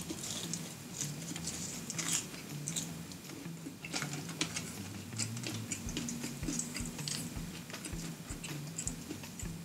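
Close-miked chewing of Burger King french fries: a dense, irregular run of small wet mouth clicks and crackles.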